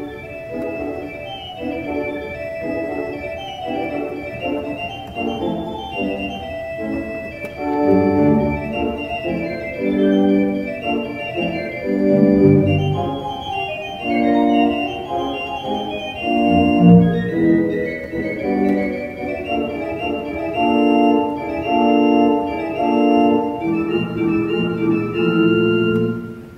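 Three-manual, 40-rank Schantz pipe organ playing a quick passage of many short notes, with deep pedal bass notes joining about eight seconds in; the sound falls away at the very end.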